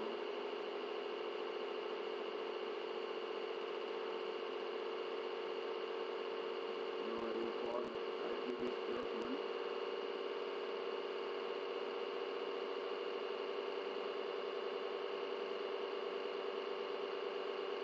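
Steady electrical hum and hiss from the recording setup, with a few faint clicks about seven to nine seconds in.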